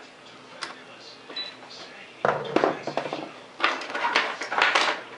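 Handling noise on a workbench: a few light clicks, then from about two seconds in a run of louder knocks and rustles as things are moved about close to the microphone.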